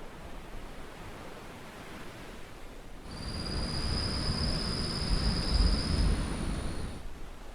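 Steady wash of Caribbean surf. About three seconds in, a louder swell rises for about four seconds, joined by a steady high, thin tone that cuts off abruptly near the end.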